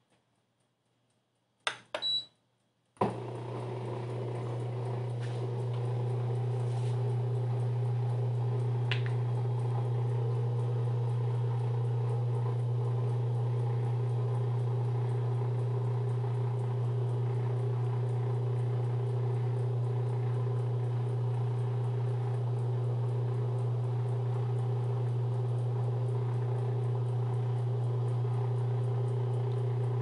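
Two short beeps from the control panel of a Maximus MAX-002J tabletop dishwasher as its cycle is started. About three seconds in, the dishwasher starts running with a steady low hum that swells over the next few seconds and then holds steady.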